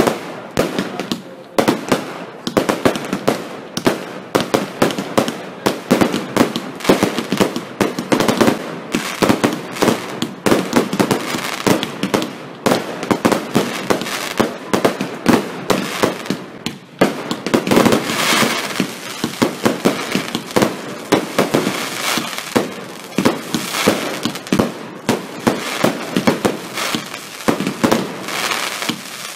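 Aerial fireworks display: a rapid, continuous barrage of sharp bangs, several a second, with a brief dip a little past halfway followed by a denser flurry.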